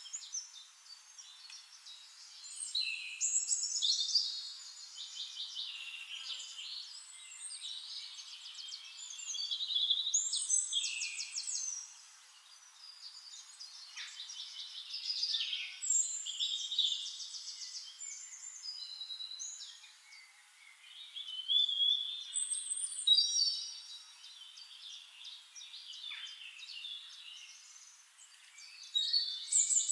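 Several songbirds singing in a forest, with rapid trills and warbling phrases in bursts every few seconds, some overlapping. There is no low rumble or background hum.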